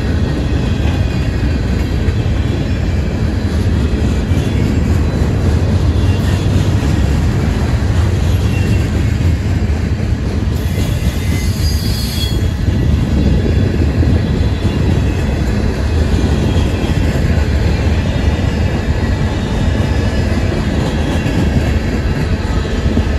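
Norfolk Southern freight train rolling past with a steady, loud rumble of wheels on rail. A brief high-pitched wheel squeal comes about halfway through.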